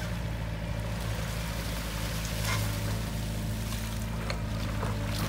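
Hitachi mini excavator's diesel engine running steadily as the arm and bucket dig through wet mud, with a few faint knocks.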